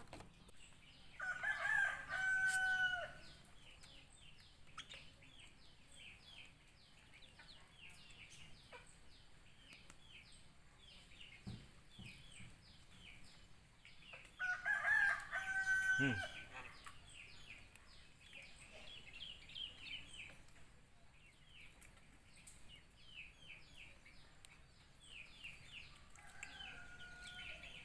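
A rooster crowing: two loud cock-a-doodle-doo crows, about a second in and about 14 s in, and a fainter one near the end. Quick high chirps of small birds go on steadily in the background.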